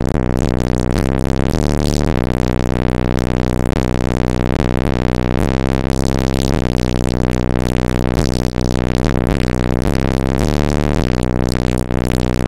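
Loud, bass-heavy electronic music played through a car stereo with three 18-inch Crossfire XS V2 subwoofers, its low notes changing every second or two.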